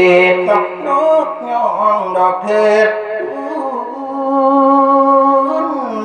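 A Buddhist monk singing Thai verse into a handheld microphone, a man's voice drawing out long held notes that glide between pitches.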